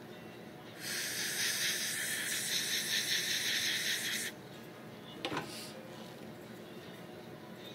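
Steady air hiss from dental equipment, starting about a second in and cutting off abruptly some three and a half seconds later. A brief faint click follows about five seconds in.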